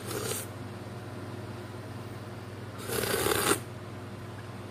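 Two short whoosh sound effects: a brief one at the start and a louder, longer one about three seconds in, over a steady low hum.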